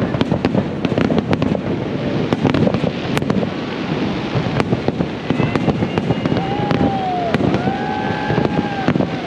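Fireworks bursting overhead, a rapid, uneven run of sharp cracks and crackles over a dense, continuous rumble. Late on, a held high tone sounds over it for about two seconds.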